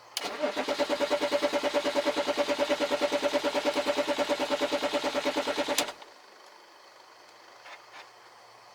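2003 BMW 530d's 3.0-litre inline-six diesel cranking on the starter motor with an even, pulsing beat, not firing, then stopping suddenly after about five and a half seconds. It is a crank-no-start caused by a lack of common-rail fuel pressure.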